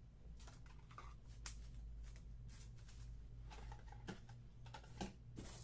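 Faint, scattered light clicks and rustles of trading cards and their plastic holders being handled, over a low steady hum.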